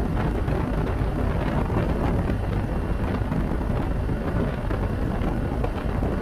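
Steady wind rush buffeting the microphone while riding a BMW R 1250 GS Adventure, its boxer-twin engine running underneath.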